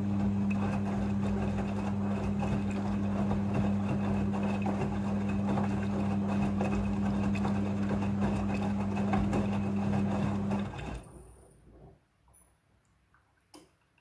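Midea front-loading washing machine tumbling wet laundry in rinse water during the second rinse: a steady motor hum with sloshing and soft knocks. The drum stops about eleven seconds in, leaving only a few faint ticks.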